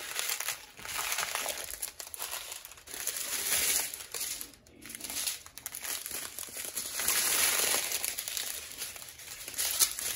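Thin plastic bags of round diamond-painting drills crinkling as they are handled and shuffled, with a brief lull about four and a half seconds in.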